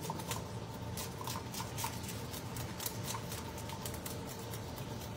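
Irregular small clicks and scrapes of a knife cleaning fish at a sink, several a second, over a steady low hum.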